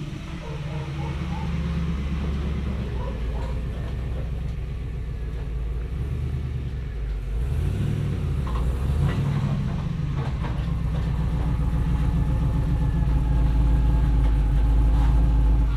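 A vehicle engine running steadily, its pitch dipping and climbing again around the middle as it revs or shifts, then stopping suddenly at the end.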